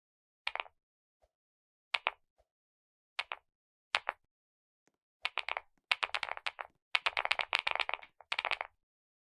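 Keyboard keys being pressed: four single keystrokes about a second apart, then quick runs of typing from about five seconds in.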